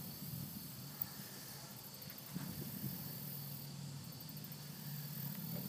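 Faint background noise: a low hum with a faint high hiss, and a single sharp click about a second in.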